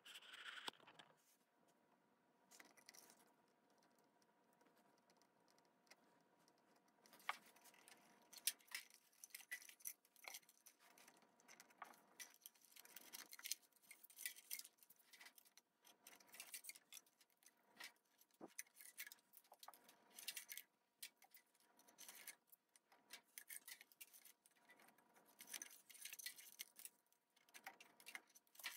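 Faint, irregular ticks and rustles of a thin red cable being wound by hand around a copper water pipe. It is near silent for the first few seconds.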